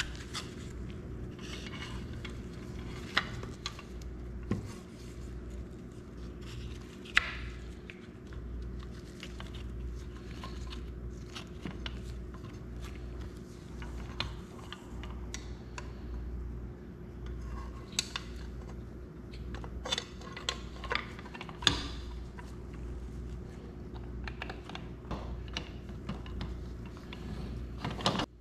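Small metal clicks, taps and clinks from steel axle rods and wheels being handled and fitted to a pressed-steel toy truck chassis, with a few sharper clicks among them. A steady low hum runs underneath.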